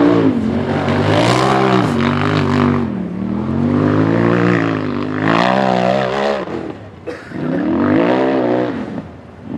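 Race buggy engine revving hard under load as the tube-chassis buggy climbs a steep dirt hill, the revs surging up and falling back again and again. The engine briefly drops off about seven seconds in and again near the end.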